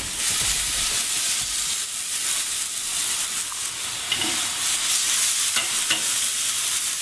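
Marinated thin-sliced beef (bulgogi) sizzling on a hot perforated grill pan while it is spread around by hand, with a couple of light knocks near the middle and end.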